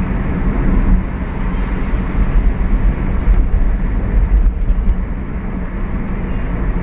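Steady engine and road noise of a moving vehicle: a low rumble with a constant hum.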